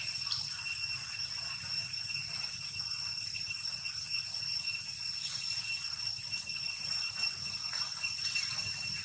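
A steady, high-pitched ringing drone with evenly spaced overtones, unchanging throughout, over a faint low background hum.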